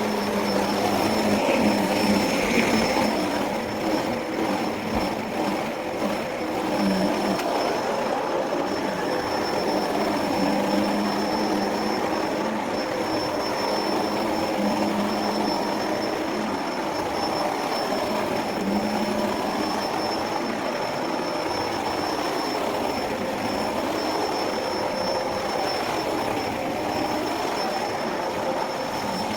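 Electrolux Precision vacuum cleaner running steadily, its motor giving a continuous high whine over a rushing hum.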